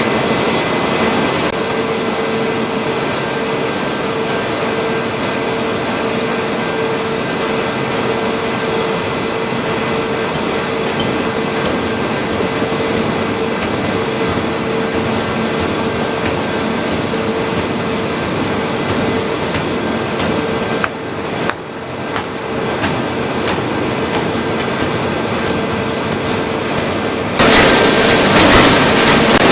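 Forging machinery running with a steady, dense industrial din and a constant hum, dipping briefly about two-thirds through, then turning suddenly louder and hissier near the end.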